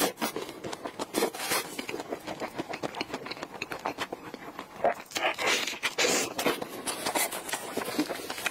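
Close-miked chewing of a soft strawberry-and-cream dessert: a dense run of small wet mouth smacks and clicks, busier about five to six seconds in.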